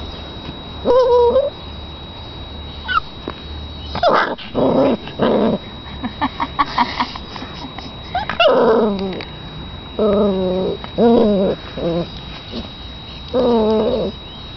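A puppy at play giving about ten short, high-pitched yips and whimpers in clusters, each under a second long.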